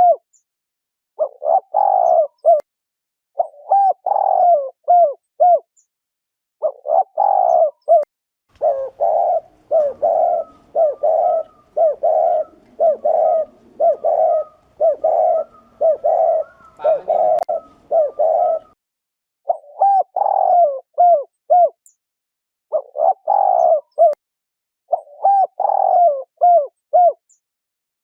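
Spotted dove giving its bowing coo ('gù') in short repeated phrases of four or five notes each. From about 8 seconds to about 18 seconds the coos run together in a faster, unbroken series.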